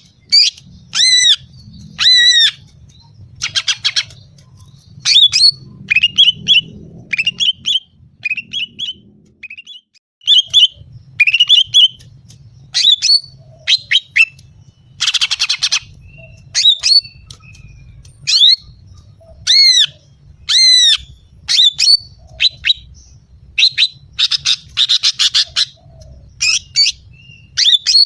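Female green leafbird (cucak ijo) calling over and over, the kind of calls used to lure and provoke males: a rapid series of short, sharp whistled notes that arch and fall in pitch, broken by a few harsh, buzzy rattles.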